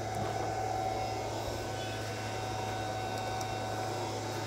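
Steady low electrical hum with a faint constant higher whine and hiss from the powered-up car audio rig, its amplifiers and head unit switched on but with no music playing.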